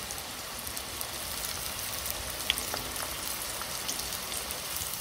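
Breaded dill pickle chips deep-frying in hot oil in a steel fry basket, the oil bubbling and crackling steadily. A brief high click comes about halfway through.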